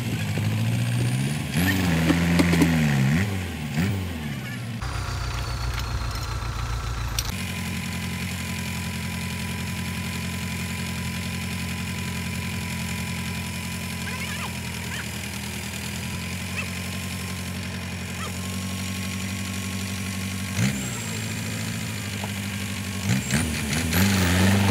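Belarus tractor's diesel engine idling steadily, with its pitch swinging up and down as it is revved in the first few seconds and again near the end.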